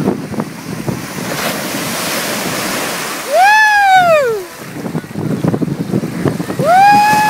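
Small waves breaking and washing through shallow surf, with wind on the microphone. A child squeals twice: a short high cry that rises and falls about three seconds in, and a longer held one near the end.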